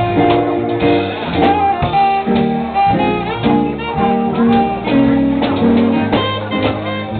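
Live band playing with guitar, a bluesy or jazzy tune with a steady beat.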